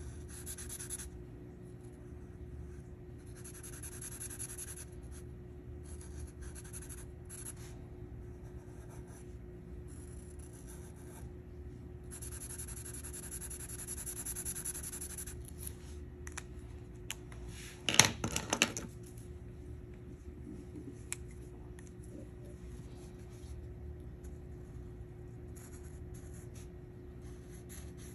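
Felt-tip marker nib rubbing and scratching across paper in colouring strokes, in stretches of one to three seconds. A short cluster of loud clicks comes about two thirds of the way through, over a faint steady hum.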